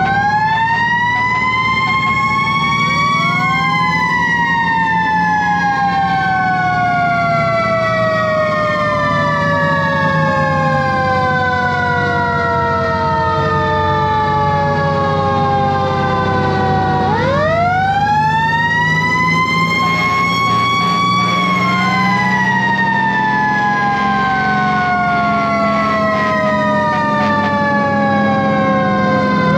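Fire engine sirens winding up and then slowly winding down, several at different pitches overlapping, rising again about halfway through. Underneath runs the steady sound of the fire engine's Detroit Diesel 8V71 engine.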